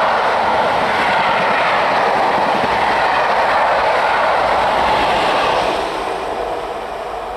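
Passenger train's coaches rolling past on the rails, a loud steady rumble of wheels. The noise falls away about six seconds in as the rear of the train, a diesel locomotive, goes by and the train draws away.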